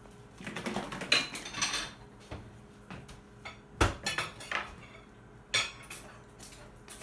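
Dishes and cutlery clattering in a kitchen: a run of clinks and knocks early, then sharper single knocks about four seconds in and again near six seconds.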